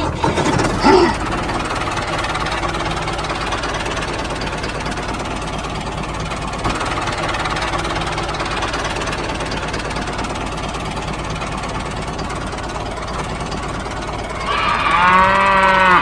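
A tractor engine runs steadily with a fast, even knock. Near the end a cow moos once, a long low call.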